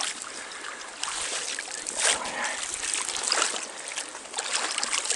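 Stream water trickling steadily, broken by several short splashes as a hooked brown trout thrashes at the surface while it is played in.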